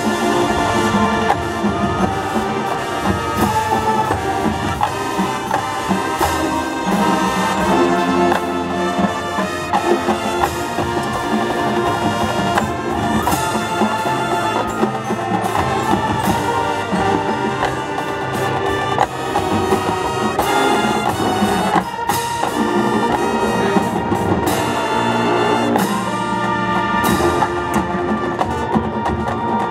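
High school marching band playing its field show: brass section (trumpets, mellophones, trombones) sounding full, sustained, changing chords over the drums.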